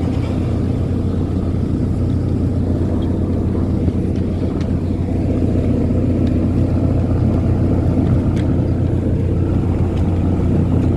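Steady low drone of a longline fishing vessel's engine, with a few faint clicks over it.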